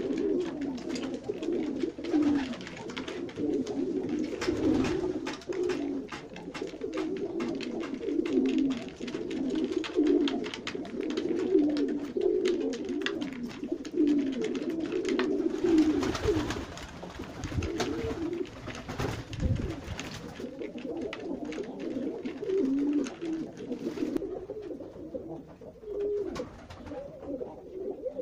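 A flock of Serbian highflyer pigeons cooing, many low coos overlapping without a break. Over them comes a scatter of light clicks from beaks pecking grain out of a wooden trough.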